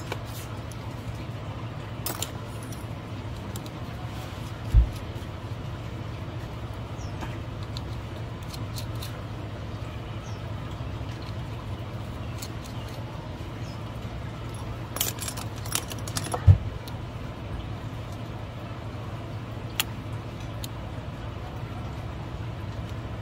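Small metal parts and tweezers clicking and tapping against a phone's plastic midframe and metal shield, scattered and irregular, over a steady low hum. Two dull thumps stand out, one about five seconds in and a louder one past the middle.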